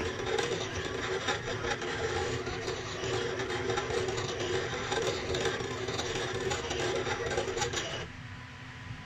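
Silhouette CAMEO 4 vinyl cutting machine running, a steady mechanical sound that drops away about eight seconds in.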